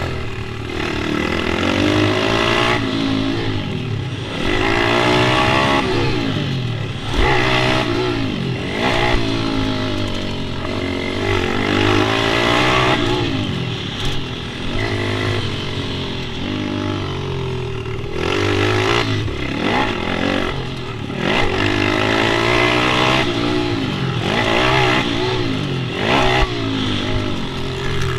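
Pit bike engines revving up and dropping back over and over, their pitch rising and falling every couple of seconds, as the bikes ride around a track.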